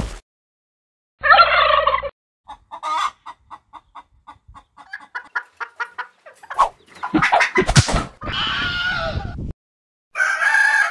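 Turkey gobbling and hen clucking, used as sound effects for cartoon birds. The calls come in several bursts with gaps, including a fast run of short notes in the middle.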